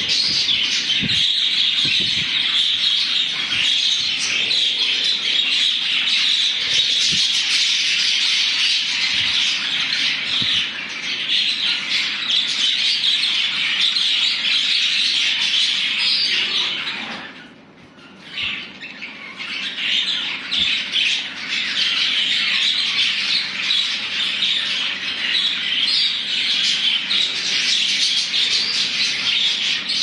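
A flock of budgerigars chattering, warbling and squawking together in a steady, dense din. It drops away for about a second a little past the halfway point, then resumes.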